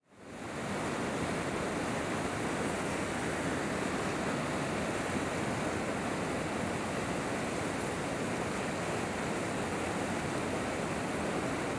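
Fast river water rushing over a rocky riffle: a steady, even rushing that fades in at the start and holds level throughout.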